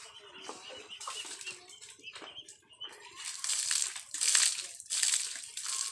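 Water thrown from a bucket onto a bicycle being washed: about four splashes in quick succession in the second half.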